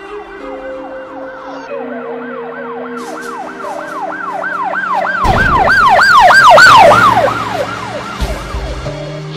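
Emergency-vehicle siren in a fast yelp, its pitch rising and falling about three times a second. It grows louder to a peak about six to seven seconds in, then fades away. A low rumble sits under its loudest part.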